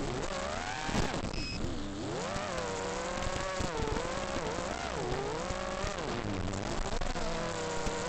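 Brushless motors of a 5-inch FPV racing quadcopter (Racerstar BR2306 2700KV with DAL 5040 four-blade props) buzzing, their pitch rising and falling with the throttle. There is a brief knock about a second in.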